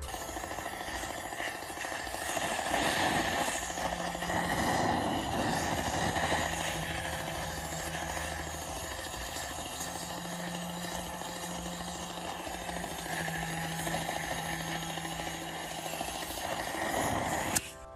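Handheld gas blowtorch burning with a steady hissing flame as it is played over a pot of steel nuts and bolts; the sound cuts off abruptly near the end.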